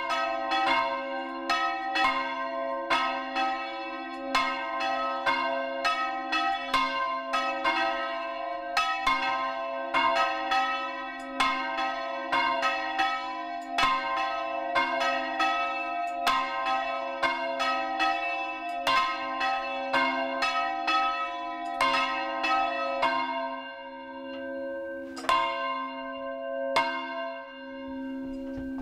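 Church bells swung full circle by hand, clanging in a rapid, even run of strokes with their ringing hum sustained underneath. Near the end the strokes thin out to a couple of last, widely spaced clangs as the swinging slows.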